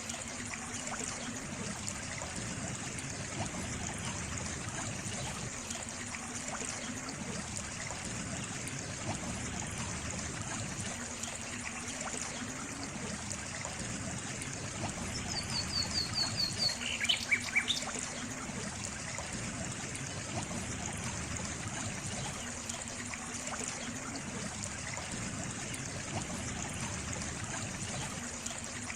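Water trickling steadily in a small stream. About halfway through, a bird gives a quick run of short high chirps, then a few lower notes.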